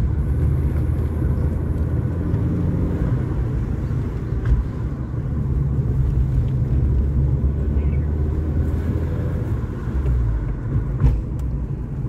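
Steady low rumble of a car on the road, heard from inside the cabin, with a small knock about four seconds in and another near the end.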